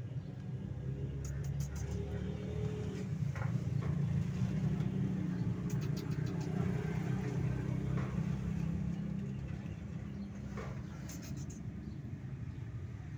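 A low engine rumble that swells over the first few seconds and eases off in the second half, with a few faint clicks.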